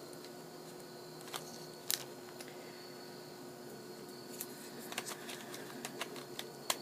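Light plastic clicks and taps of a battery pack being handled and slid into a Panasonic V550 camcorder, a few at a time and more of them near the end, over a faint steady hum.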